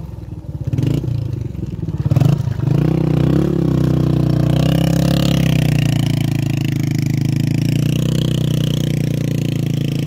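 Motorcycle engine running, uneven for the first couple of seconds, then rising in pitch about three seconds in and holding a steady drone.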